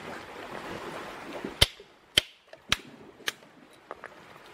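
Four sharp knocks about half a second apart, with a couple of fainter taps after: a stone striking a hermit crab's snail shell on coral rock to crack it open. A hiss of surf sits behind at first and drops away before the knocks.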